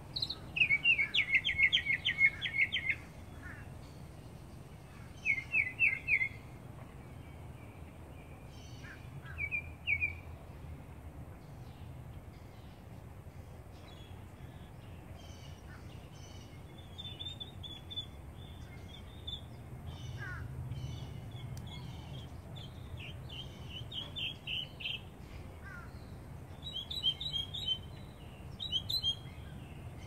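Northern mockingbird singing: a string of varied phrases, each a quick run of repeated notes, with pauses between them. The loudest run comes in the first few seconds. A steady low hum lies underneath.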